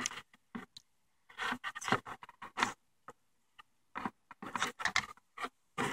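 Irregular clicks and scrapes of a plastic GM E38 PCM wiring-harness connector being pried at and handled, with the rustle of its wire bundle, coming in short flurries with brief pauses between them.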